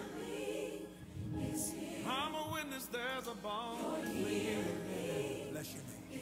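Gospel worship song: a choir singing, with a lead voice sliding through a wavering run a couple of seconds in.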